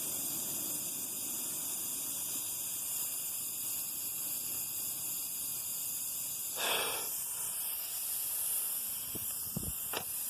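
Steady high-pitched hiss of air escaping from a car tire through a nail puncture, with a brief louder rush about two-thirds of the way through and a few small clicks near the end.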